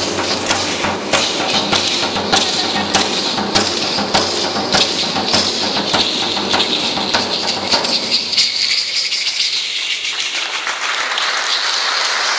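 Percussive music for a Matachines dance: a steady beat of drum strokes with the dancers' hand rattles shaking in time. Near two-thirds through the low drum part drops out for about two seconds while the rattling goes on.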